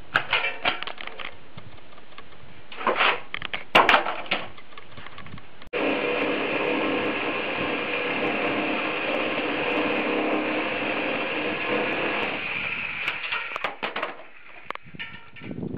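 A few sharp knocks and clatters, then a corded power saw running steadily as it cuts through an old wooden roof beam for several seconds before dying away, followed by a few more knocks.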